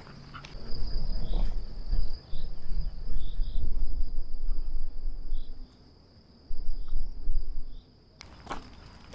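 Insects trilling steadily on one high note, with a few short higher chirps. A loud low rumble comes and goes over it, dropping out about six seconds in and again near the end.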